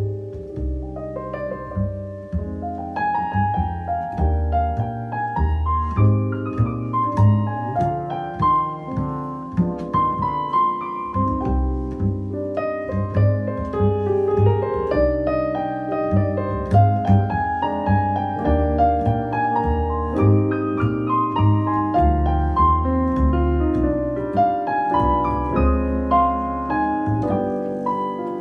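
Piano and double bass duo playing a slow piece: a digital stage piano carries chords and melody while the upright bass is plucked underneath, walking between low notes.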